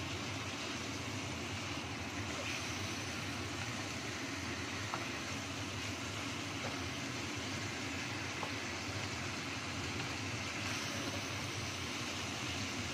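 Chicken pieces frying in red spice paste in a wok, a steady sizzling hiss, with a few faint clicks of a wooden spatula against the pan.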